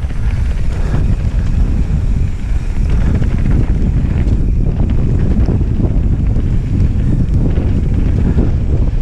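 Wind buffeting a helmet camera's microphone as a downhill mountain bike descends at speed, mixed with a steady low rumble of knobby tyres on a dry dirt and gravel trail and frequent small rattles and knocks from the bike over stones.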